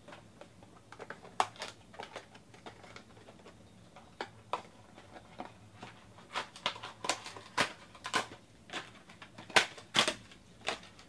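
Trading cards and plastic-foil card pack wrappers being handled on a table: irregular sharp clicks and light crinkles, sparse at first, then busier and louder in the second half.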